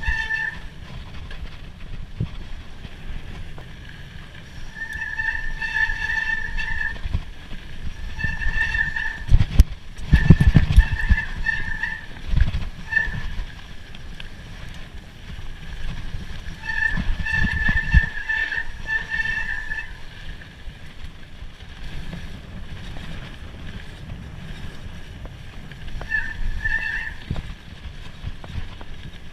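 Mountain bike being ridden along a dirt trail: a high, steady-pitched whine from the bike comes and goes in stretches of a second or two, over a low rumble of trail bumps and wind on the microphone. The rumble is loudest about a third of the way in and again a little past halfway.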